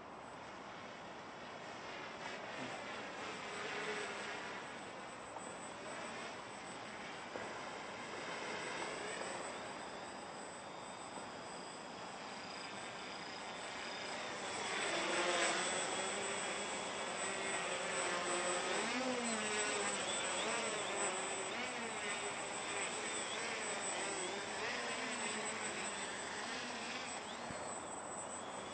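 Walkera Hoten-X quadcopter's electric motors and propellers buzzing in flight, the pitch wavering up and down with the throttle, louder from about halfway through as it comes close. A thin steady high tone runs under it.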